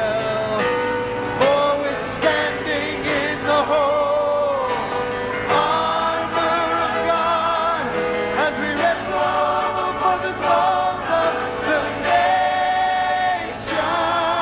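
Large mixed choir of men and women singing a gospel song in harmony, holding long notes that change pitch every second or two.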